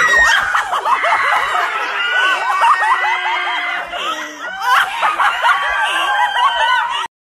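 Several women shrieking and laughing at once, high-pitched voices overlapping throughout, cut off abruptly near the end.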